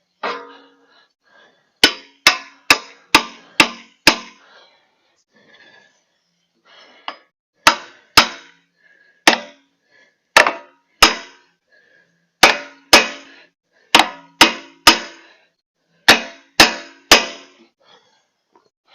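Hammer blows on metal, about twenty sharp strikes in quick runs of two to five, each ringing briefly: tapping the lubed end cap down into the log splitter's hydraulic cylinder.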